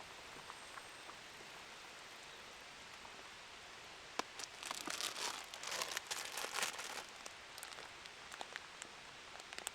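A steady soft hiss, with a few seconds of crinkling and rustling with sharp clicks about four seconds in.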